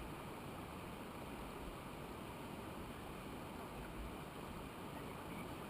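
Steady rushing noise of flowing water from a stream or waterfall, even throughout.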